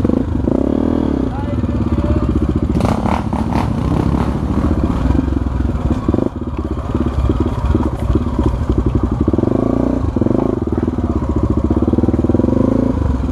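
Single-cylinder four-stroke engine of a Honda Tornado trail bike running at low, shifting revs on a rough downhill dirt trail, with occasional knocks and rattles as the bike goes over bumps.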